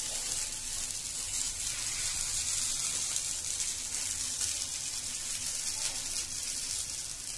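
Fresh-corn chilla batter sizzling in oil on a hot tawa: a steady high hiss.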